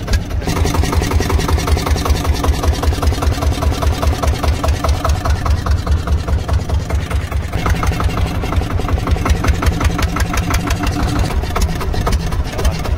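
A small fishing boat's engine running steadily, with a rapid, even thumping beat.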